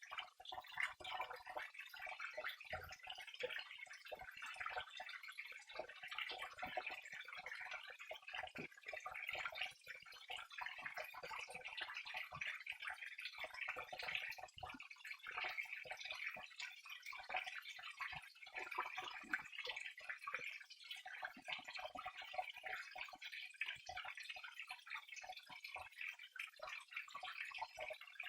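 Flowing water trickling and splashing steadily, a dense run of small drips and splashes.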